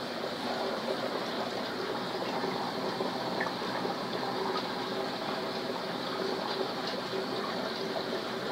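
Reef aquarium's water circulation: a steady, even rush of moving water from the tank's pump and flow, with a low steady hum underneath.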